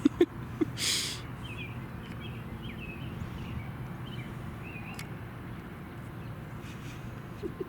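Small birds chirping in short, scattered calls over a steady low background rumble, with a brief rustling burst about a second in.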